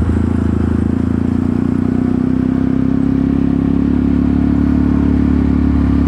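Yamaha R15 V3 motorcycle's single-cylinder engine running at low revs in slow traffic. Its pitch rises gently over the first few seconds as it pulls, then holds steady.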